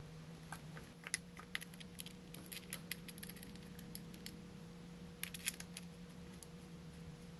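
Light metallic clicks and taps of a hand tool and parts as the front sprocket area and its cover are refitted on a Yamaha TT-R110 dirt bike, with a quick cluster of clicks about five seconds in. A steady low hum runs underneath.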